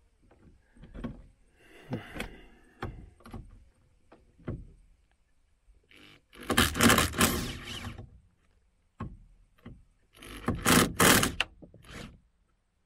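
Cordless drill-driver with a screwdriver bit backing out the cross-head screws of a car door hinge, the motor running in two loud bursts about six and ten seconds in, with scattered clicks and knocks of the bit and tool against the hinge between them. The screws come out without trouble.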